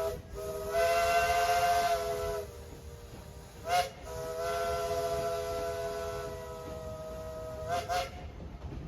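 East Broad Top steam locomotive's chime whistle blowing several tones at once over a hiss of steam: a long blast, a short toot, another long blast, then two quick toots near the end.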